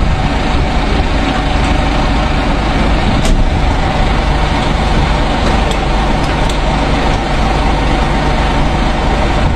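Heavy vehicle engine idling steadily, a low rumble, with one sharp click about three seconds in.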